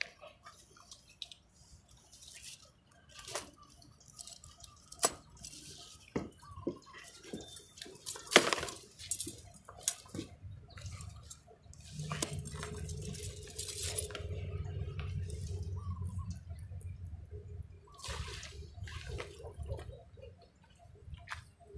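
Irregular water splashes and drips at the edge of a pond, short and sharp in the first half. A low steady hum comes in about halfway through and runs on under them.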